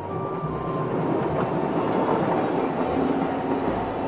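Steam train hauled by steam locomotive C57 180 passing over a level crossing, its wheels clattering on the rails and growing louder, with steady ringing tones over the rumble.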